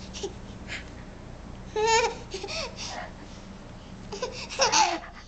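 A small child making silly high-pitched vocal noises, wavering squeals and babble, in two loud bursts about two seconds in and near the end.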